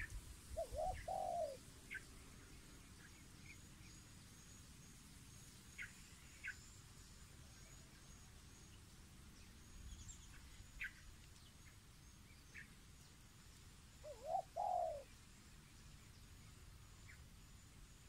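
A dove cooing: a short phrase of a few coos about half a second in and another near fourteen seconds in. Faint, scattered short chirps of small birds fill the gaps.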